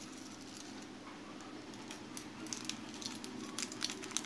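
Faint small clicks and rustles of a thin necklace chain being handled in and out of a small plastic bag. The clicks come more often from about two seconds in, over a low steady hum.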